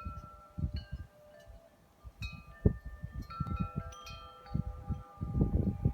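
Wind chimes ringing in gusty wind: several different tones struck at irregular moments, each ringing on, with the wind buffeting the microphone in low gusts, strongest near the end.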